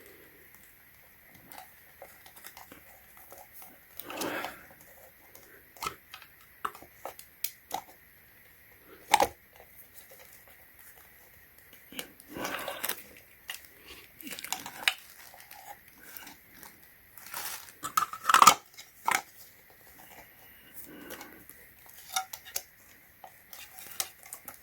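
Hard plastic parts of a submersible pond pump being handled and adjusted: scattered clicks, knocks and light rattles as the outlet housing is turned and set down, the sharpest knocks about 9 and 18 seconds in.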